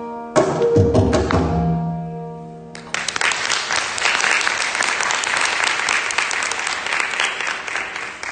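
Closing stroke of three veenas and a mridangam, a sharp plucked-and-struck attack left to ring and fade. About three seconds in, audience applause starts and continues.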